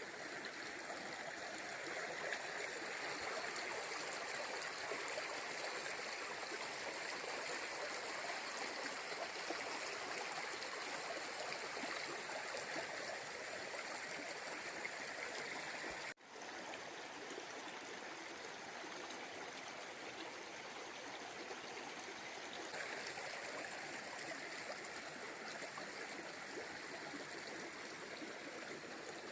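A river in coastal forest flowing over rocks, a steady rush of running water. The sound drops out for an instant about halfway through and resumes slightly quieter.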